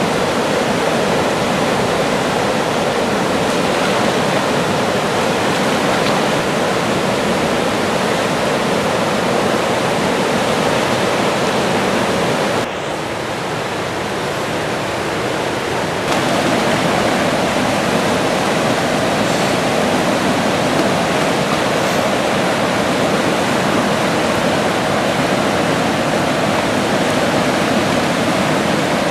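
River rapids rushing over rocks, a loud steady wash of white water, a little quieter for about three seconds near the middle.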